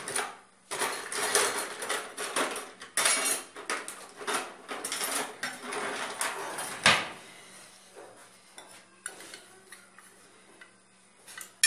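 Cutlery and dishes clattering for several seconds, with one sharp, loud clink about seven seconds in, then scattered lighter clinks of metal utensils against a ceramic baking dish.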